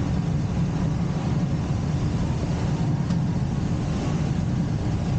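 Steady rush of air and low rumble inside a glider cockpit on aerotow, even in level with no separate events.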